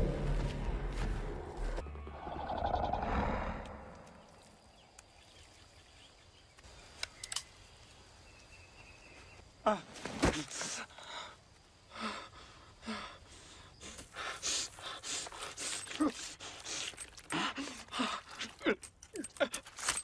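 A deep rumble dies away over the first few seconds. After a few nearly quiet seconds comes a run of short, irregular gasps and breaths.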